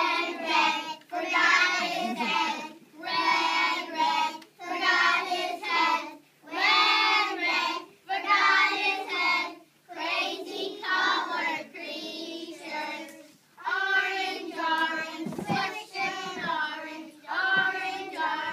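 A group of young children singing a song together, in sung phrases with short pauses between them.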